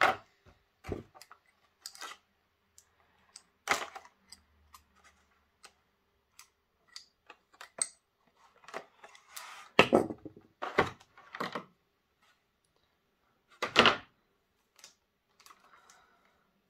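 Clear plastic blister packaging of a model-railway wagon being handled and pulled apart: a string of sharp plastic clicks and crackles, with a few louder knocks.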